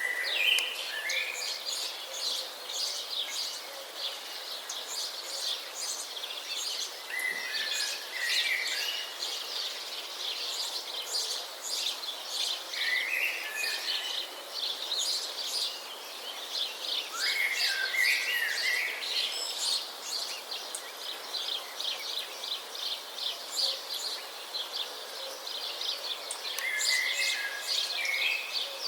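Outdoor chorus of birds: many small birds chirping rapidly and continuously, with a lower warbling phrase from one bird repeating every few seconds.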